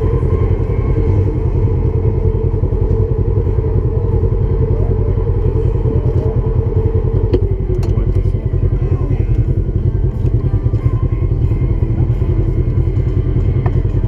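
Side-by-side UTV engine running loud and steady, its note dropping about seven seconds in, with a couple of sharp clicks at that point.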